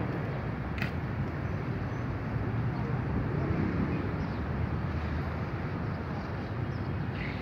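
Steady outdoor city noise, mostly a low rumble of traffic with faint voices mixed in, and a single sharp click just under a second in.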